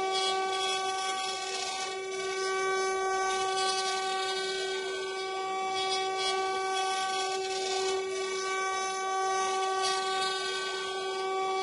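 The twin 800 W spindles of a mini CNC router whining steadily at high speed while their bits mill a 3D relief into a wooden block, with the scratchy rasp of the cut underneath.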